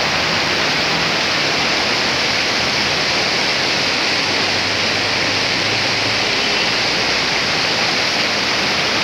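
Rushing mountain river tumbling over rocks: a steady, loud, unbroken roar of white water.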